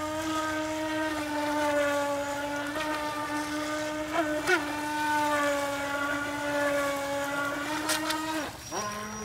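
A TenShock Mini Eco RC speedboat's electric motor whining steadily at high throttle as the boat circles on the water. The pitch wavers briefly about four seconds in, then drops near the end and starts climbing again as the throttle is eased and reopened.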